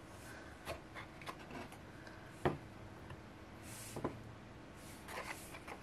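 Cardboard and paper pieces handled on a table: a few soft taps and clicks, the sharpest about halfway through, with short rustling and sliding between them.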